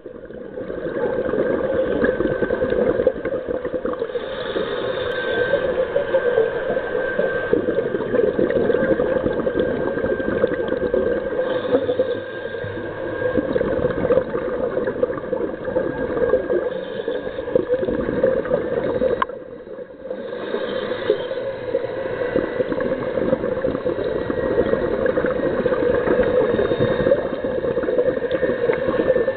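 Scuba divers' regulator bubbles heard underwater: a continuous muffled bubbling and gurgling, easing off briefly about twenty seconds in.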